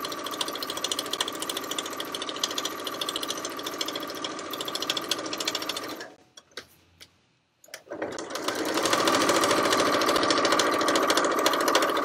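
Electric sewing machine stitching at a fast, even rate with a steady whir. It stops about six seconds in, stays quiet for about two seconds, then starts stitching again.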